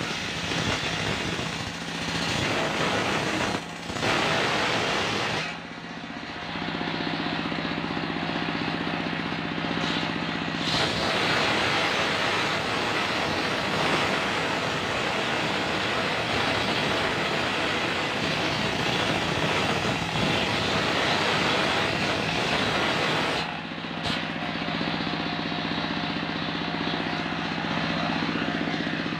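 Circular sawmill blade, driven by a stationary engine, ripping a coconut palm log with a loud grinding hiss. Twice the cutting drops away, from about six to eleven seconds in and again for the last five seconds or so, leaving the engine running steadily with the blade spinning free; a long cut fills the middle.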